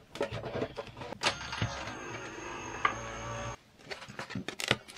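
Die-cutting and embossing machine pressing a plastic embossing folder through its rollers: a steady run of about two seconds with a thin high whine, starting about a second in and cutting off suddenly. Light clicks and taps of the plastic folder being handled before and after.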